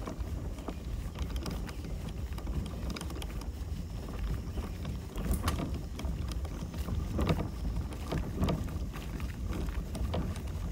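Kayak paddling: the paddle blades splash into the water now and then, over a steady low rumble of wind on the microphone.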